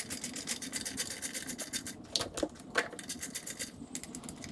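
Hand-tool work on a Kawasaki 650SX jet ski engine: a steady run of rapid small clicks and rubbing, with a few sharper clicks about two and three seconds in.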